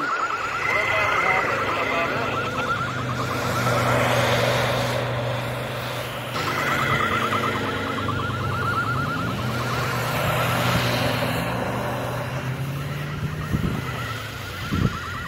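Land Rover Discovery 2 engine running under load as the 4x4 pushes and spins its tyres through deep snow, the revs rising about nine seconds in. A fast warbling high tone comes and goes three times over it.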